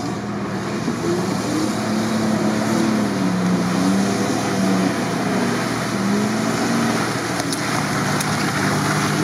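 Toyota 4Runner's engine revving up and down under load as the truck pushes through deep mud and water, over the steady churn of tyres in the mud.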